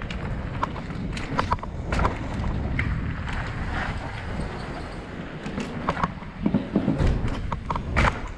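Mountain bike riding fast over rough concrete and stone paving: a steady low rumble from the tyres, with frequent sharp knocks and rattles as the bike hits bumps, loudest near the end.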